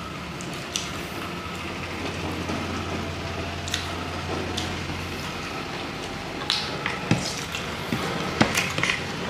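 Wet chewing and eating sounds of people eating saucy fried chicken lollipops with their fingers, with scattered sharp clicks that come more often in the second half. A low steady hum sounds under the first half.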